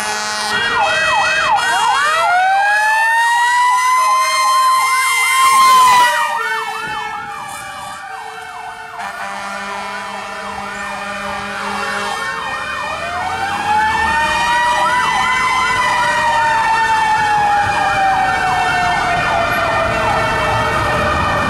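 Fire engine's Federal Q2B mechanical siren winding up and falling away twice. Layered over it are a faster warbling siren and the alternating two-note blasts of a Martin horn.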